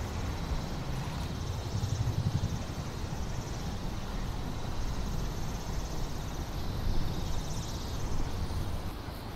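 Wind buffeting the microphone: a gusty low rumble with a hiss over it, swelling about two seconds in and again near seven seconds.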